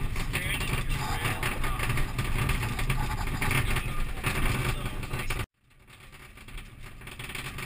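Rally car engine running hard and tyres on loose gravel, heard from inside the cabin. About five and a half seconds in, the sound cuts out abruptly, then returns faintly and builds back up.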